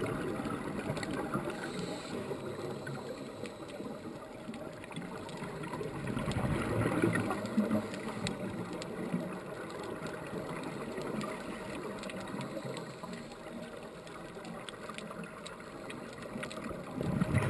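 Muffled underwater noise heard through a GoPro's waterproof housing: the rushing and gurgling of scuba divers' exhaled bubbles from their regulators, swelling louder about seven seconds in.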